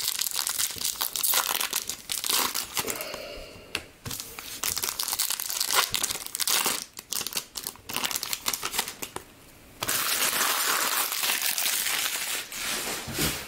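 Foil trading-card pack wrapper being torn open and crinkled by hand: an irregular crackle of plastic, turning into a few seconds of steady crumpling near the end.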